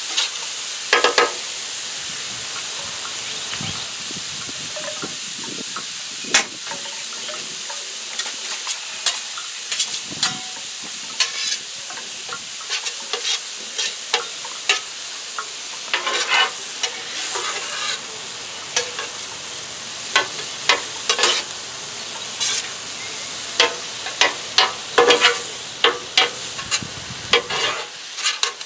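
Cauliflower fried rice with egg, chicken, peas and carrots sizzling steadily on a hot griddle while metal spatulas scrape, chop and clack against the griddle's metal top. The scraping is sparse at first and comes thick and fast from about a third of the way in.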